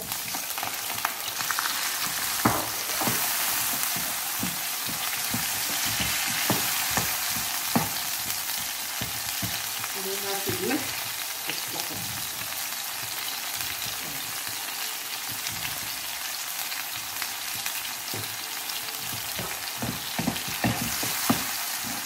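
Diced tomatoes and chopped garlic frying in hot oil in a non-stick frying pan: a steady sizzle, with the knocks and scrapes of a wooden spoon stirring them, coming more often near the end.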